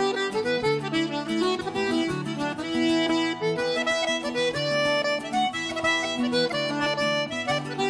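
Instrumental background music with an accordion playing a melody, its notes changing in quick succession over a steady accompaniment.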